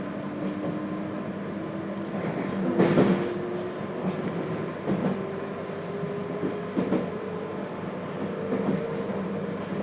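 JR Hokkaido 721 series thyristor phase-controlled electric train heard from inside its motor car while running: the traction motor hum rises steadily in pitch as the train picks up speed. The wheels knock over rail joints every couple of seconds, loudest about three seconds in.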